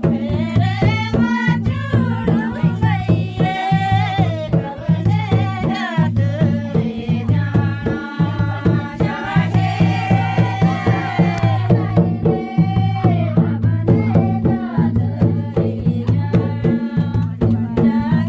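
Pangi folk dance music: a voice singing a wavering melody over a steady, driving drum beat and a held low drone.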